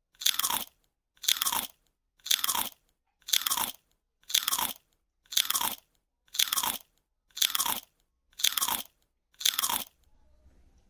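Crunching bites into watermelon: nine alike crunches, evenly spaced about a second apart, each cut off sharply.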